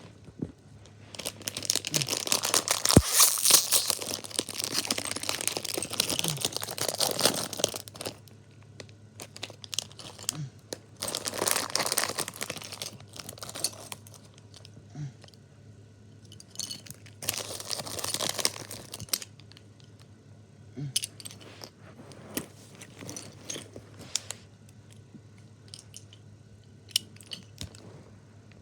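A Lego minifigure blind bag being torn open and crinkled in bursts of rustling, with scattered small clicks between them.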